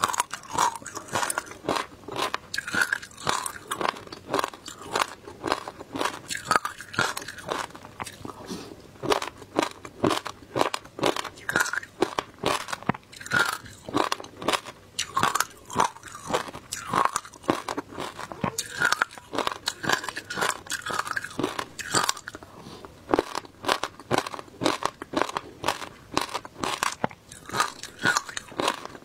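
Shaved ice with passion fruit pulp and seeds being crunched and chewed close to the microphone: a rapid, uneven run of crisp crunches.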